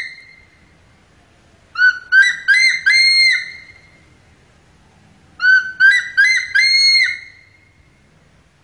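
Changeable hawk-eagle calling: two series of high whistled notes, each of about four short notes climbing in pitch and ending in a longer held note.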